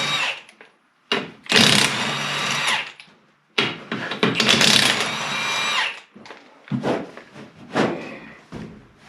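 Power impact wrench running in bursts of a second or two with a high whine, spinning lug nuts off a skid steer wheel, followed by a few lighter knocks.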